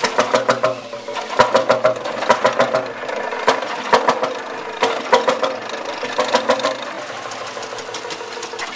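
The 1918 Jelbart tractor's single-cylinder two-stroke crude-oil engine is running on hit-and-miss governing. It gives clusters of sharp firing knocks about once a second, with quieter clattering stretches between, and settles down near the end.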